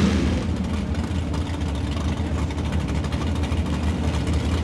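Muscle cars on slicks idling at a drag strip start line, a steady low rumble. A rev drops away right at the start.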